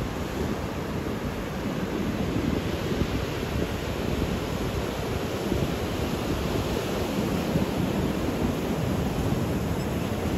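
Surf breaking and washing over rocks and sand, with steady wind buffeting the microphone.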